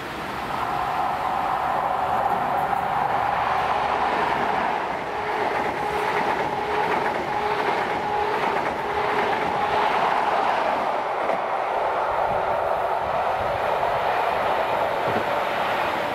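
Passenger train passing close by: a steady hum with held tones that swells about half a second in and eases off near the end, with a run of clicks in the middle as the wheels cross rail joints.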